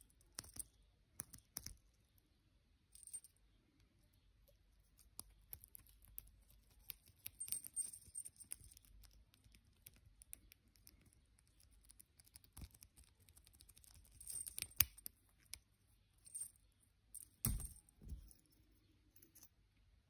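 Small brass padlock being worked with a tension tool in its tiny keyway: quiet, irregular metallic clicks, scrapes and light jingles of the lock body, shackle and tool. A sharper click comes about three-quarters of the way through, and a dull knock follows shortly after.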